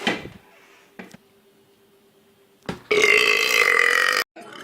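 A person belching loudly for about a second and a half, cut off abruptly.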